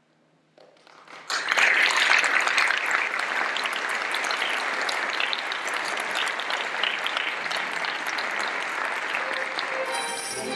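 Theatre audience applauding: scattered claps about half a second in swell into full, steady applause a moment later. Near the end the orchestra's strings begin to play under the clapping.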